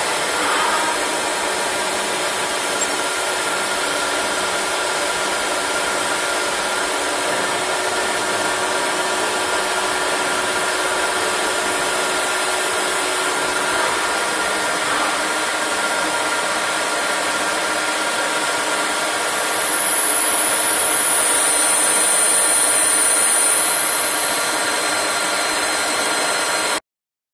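CNC lathe turning a brass part dry, without coolant: a steady run of spindle and cutting noise with several steady tones. A high whine dips in pitch and the sound grows a little louder about two-thirds through, and it all cuts off abruptly near the end.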